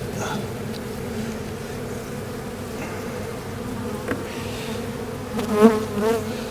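Honeybees buzzing around an open hive: a steady, many-voiced hum of the colony, with two louder, wavering buzzes near the end.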